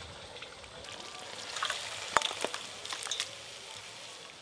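Metal spatula clinking and scraping against a wok and a steel bowl as thick chicken curry is served out, a handful of sharp clinks over a soft hiss.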